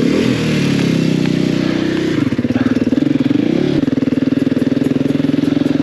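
Dirt bike engine running hard on the throttle. Its pitch climbs and then drops sharply about four seconds in, as with a gear change, and then holds steady with a fast pulsing in the note.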